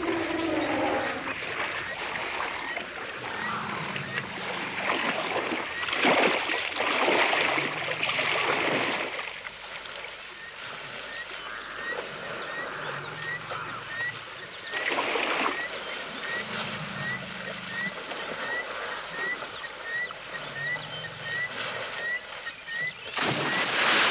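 African elephants splashing and wallowing in a waterhole. There are loud surges of splashing water several times, with a high chirp repeating a little under twice a second through the middle and low rumbling sounds every few seconds.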